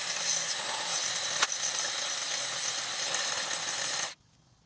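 A handheld power tool runs steadily with a high hiss for about four seconds, then cuts off suddenly. It is grinding down small ridges on a metal surface.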